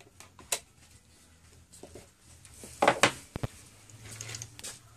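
Handling of a Samsung Galaxy Note II's removed plastic back cover: a few sharp plastic clicks and taps, loudest about three seconds in as the cover is set down on a wooden desk.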